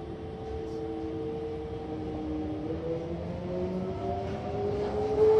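Toei 5300-series subway train's GTO-VVVF inverter whining, several tones climbing slowly in pitch as the train gathers speed, over low wheel-and-rail rumble, heard from inside the car.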